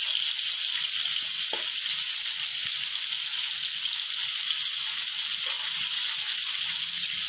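Slabs of white sheet tofu frying in hot oil in a wok over low to medium heat: a steady, even sizzle.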